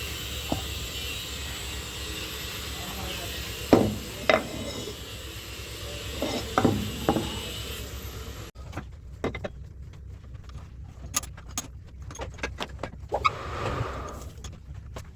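Workshop clatter: a steady machine noise with a faint whine and several sharp metal knocks. About eight seconds in it cuts abruptly to a quieter stretch of many short metallic clicks and taps.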